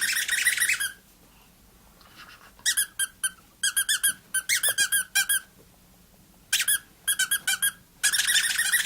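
A bird chirping in quick runs of high, repeated twittering notes, coming in several bursts with short pauses between them.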